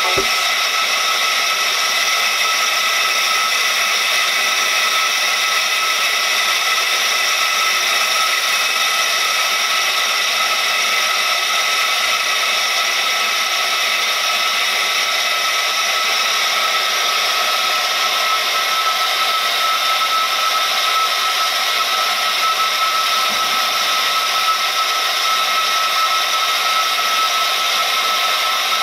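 A homemade 12 V to 220 V inverter running under load: a steady whir with a constant high whine that neither rises nor falls.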